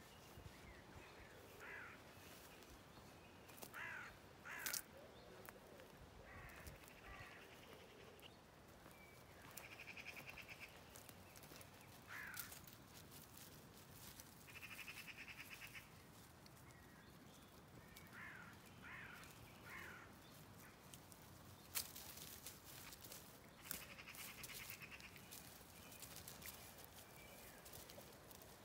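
Near silence with faint bird chirps, a harsh drawn-out call roughly every five seconds, and a few sharp clicks.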